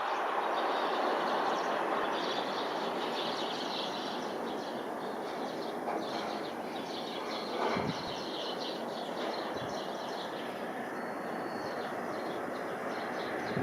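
Steady rushing noise of a regional jet's engines after landing, heard from a distance, with faint bird chirps mixed in.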